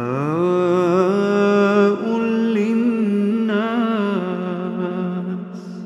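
Quran recitation: a single reciter's voice draws out one long melodic phrase. It rises in pitch at the start, is held with small wavering ornaments, and fades away near the end.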